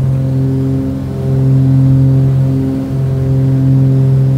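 Twin piston engines and propellers of a Cessna 402C droning steadily, heard from inside the cockpit. The drone pulses slowly in loudness, a beat every second or two, as the two engines run slightly out of step.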